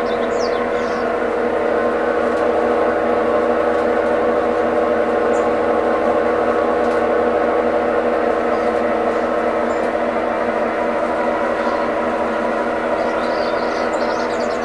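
Brastemp 11 kg washing machine running with a steady, multi-tone whining hum, the abnormal noise the machine is making.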